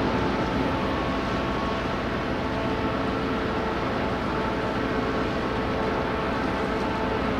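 Steady drone of a large cargo ship's engines heard across open water, with a few faint steady tones over an even rumbling noise.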